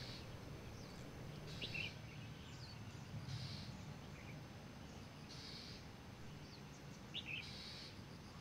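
Faint outdoor ambience: a low steady background hum with a few short bird chirps scattered through it, the clearest about one and a half seconds and seven seconds in.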